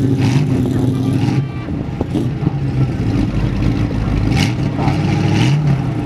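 Two classic first-generation Ford Mustang coupes' engines running as the cars pull away slowly. The engine note is steady, with revs rising briefly near the start and again a little before the end.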